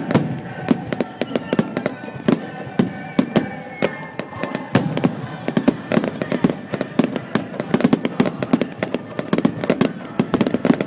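Aerial fireworks display: a dense, continuous barrage of bangs from shell bursts, many a second, with crackling in between.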